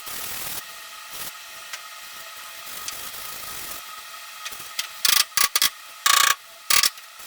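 Sanding on a truck body panel, a steady rubbing and scraping over a faint steady tone, then several short, loud hissing bursts about five to seven seconds in.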